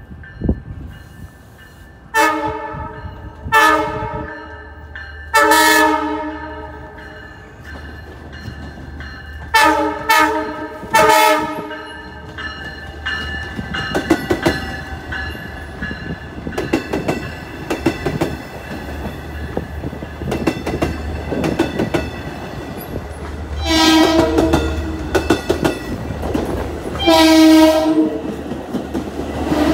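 Long Island Rail Road push-pull train led by a C3 bi-level cab car, sounding its horn in about eight loud blasts as it approaches and passes: three near the start, three about ten seconds in and two near the end. Under the blasts run a steady low diesel rumble and wheels clacking over rail joints as the cars go by.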